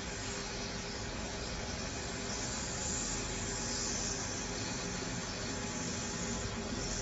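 Hot air rework station blowing a steady hiss of air onto a chip's pins while desoldering it from a hard drive circuit board, a little louder for a few seconds in the middle.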